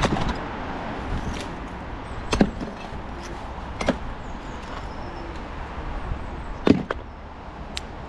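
Sharp metallic clicks as pieces of rusty scrap are worked off a fishing magnet by hand, four separate clicks a second or more apart, the loudest near the end, over a steady background hiss.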